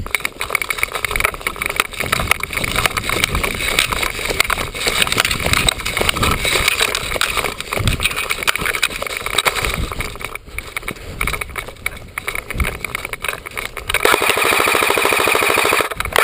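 Scuffing, rustling and gear rattle from players moving off through the field. Near the end comes a long burst of rapid full-auto fire from an airsoft electric rifle, its gearbox buzzing steadily.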